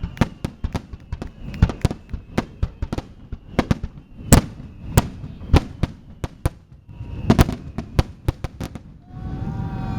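Finale aerial fireworks bursting in a rapid, irregular barrage of sharp bangs, the loudest a little before the middle. Near the end the bangs thin out and the crowd's voices rise.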